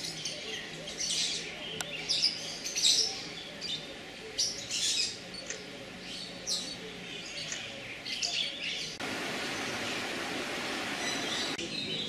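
Many birds chirping and calling in short, high notes. About nine seconds in, a steady rushing noise starts abruptly and stops just as suddenly a couple of seconds later.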